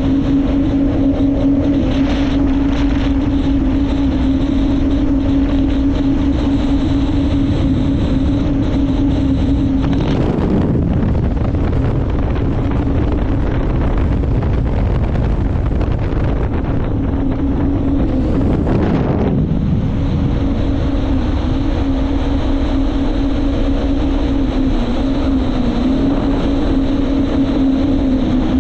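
Jet ski engine running at a steady cruising pitch with wind rushing over the microphone. Twice, about ten and eighteen seconds in, the steady engine note briefly gives way to a louder rush.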